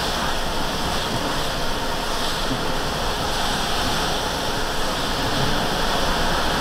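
Steady road noise heard from inside a truck's cab while driving on a rain-soaked highway: tyres hissing on the wet pavement under a low rumble of engine and wind.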